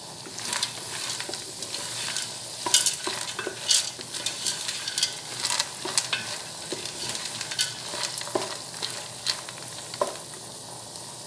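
Wooden spoon stirring dry white beans into sizzling sausage and bacon in a pressure cooker: a steady frying sizzle with irregular scrapes and knocks of the spoon and beans against the pan.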